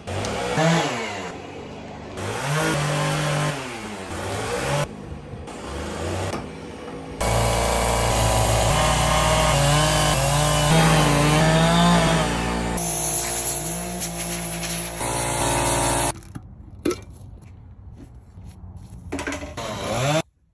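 Workshop power tools running in a string of short clips, their motors rising and falling in pitch and cutting off abruptly between clips. It is quieter near the end, with a few clicks and knocks.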